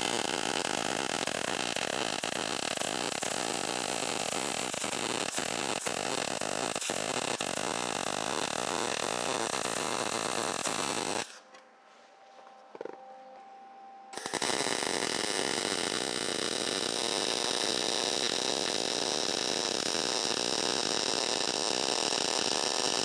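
Loud, continuous power-tool work on steel in two long runs, about eleven and nine seconds, with a pause of about three seconds between them. The second run carries a steady high whine.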